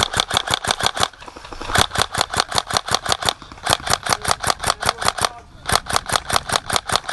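Airsoft gun firing on full auto in four bursts of rapid, evenly spaced shots, about eight or nine a second, with short pauses between bursts.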